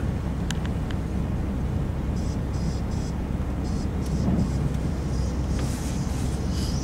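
Inside an Opel car's cabin while driving on a snow-covered road: the engine and tyres make a steady low rumble.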